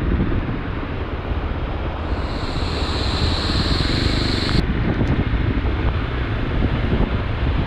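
Motorcycle riding noise on a helmet-mounted camera: wind rushing over the microphone with the bike's running sound under it. A steady high-pitched buzz comes in about two seconds in and cuts off suddenly a little past the middle.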